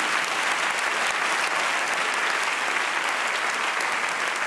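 Theatre audience applauding steadily, a dense even patter of clapping in response to a comedian's punchline.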